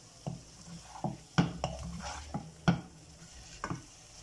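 A spatula scrapes through thick semolina halwa and knocks against the sides of a dark wok-shaped pan, with about eight sharp knocks at uneven intervals. The halwa is stirred continuously as it browns, its milk and oil already cooked dry.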